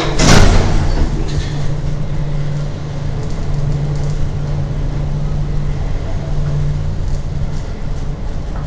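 A 1970s Otis traction lift car setting off and travelling down: a loud knock just after the start, then the steady low hum of the car in motion.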